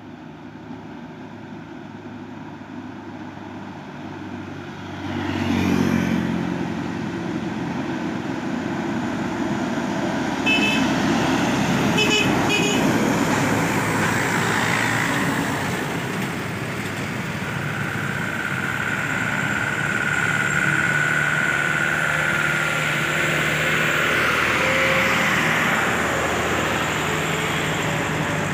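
Laden diesel trucks passing close one after another, engines running under load, getting much louder about five seconds in. Short horn toots come at about ten seconds in and again as three quick toots about two seconds later.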